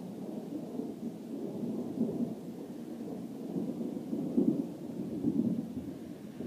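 Thunder from a thunderstorm, rumbling and rolling on without a break and swelling louder about four to five seconds in.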